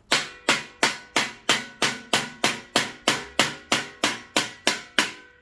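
A hammer strikes a fan motor in a steady run of about fifteen blows, roughly three a second, each with a short metallic ring. He is trying to knock a stuck part out of the motor, and it does not come free.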